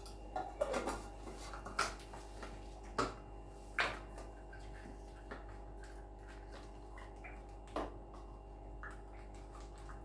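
Plastic measuring cups and a cocoa powder packet being handled over a plastic mixing bowl while cocoa is measured out: a few scattered light clicks and knocks over a steady faint hum.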